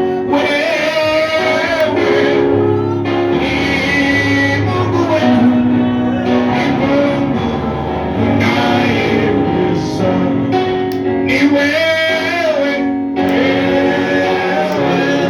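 Gospel worship song: male and female voices singing over a guitar-led band.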